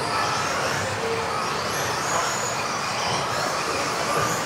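Several electric RC off-road buggies racing: high motor whines rising and falling over a steady rush of tyres on the hall floor.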